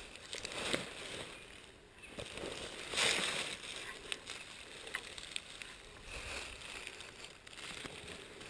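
Dry fallen leaves rustling and crunching in irregular bursts, the loudest about three seconds in, from movement around a freshly shot wild turkey lying in them.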